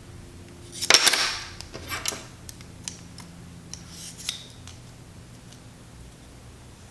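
Small metal screws and tools being handled on a worktable during frame assembly: a rattling clatter about a second in, another near two seconds, then a few light clicks and clinks.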